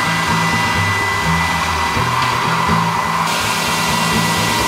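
YUKON II bridge saw's large water-cooled diamond blade cutting through a stone slab: a steady whooshing hiss with a thin high whine. Background music with a low bass line plays underneath.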